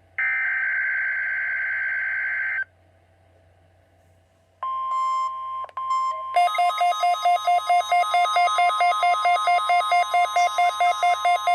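Weather-radio alert test tones. First comes a harsh digital data burst of about two seconds, a SAME header of the kind that switches on alert receivers. After a short pause a steady alarm tone begins about four and a half seconds in. About a second and a half later a rapidly pulsing beep joins it, about three pulses a second, and both run on together.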